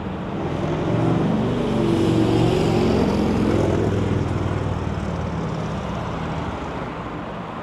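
A road vehicle passes close by on the street: its engine and tyre noise swell to a peak a couple of seconds in, then fade slowly.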